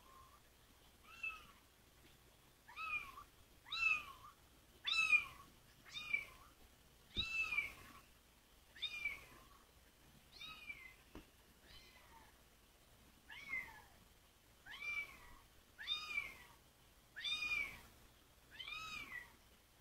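Young kitten mewing over and over: high, arching mews about one a second, with a short lull about halfway.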